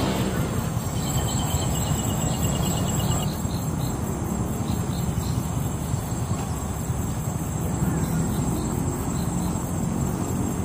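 Insects chirping: a steady high trill throughout, with a quick run of higher chirps between about one and three seconds in, over a steady low rumble.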